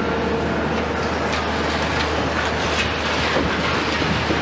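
CAT 374F demolition excavator with its Cat C15 diesel running steadily under load, a hydraulic whine fading about a second in. Its crusher jaws crunch concrete, with scattered crackles and knocks of breaking and falling debris.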